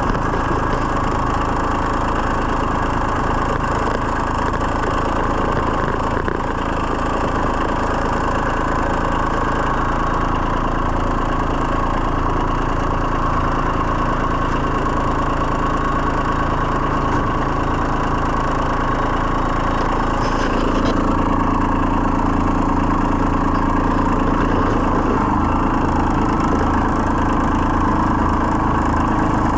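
A small engine running steadily, getting a little louder about twenty seconds in.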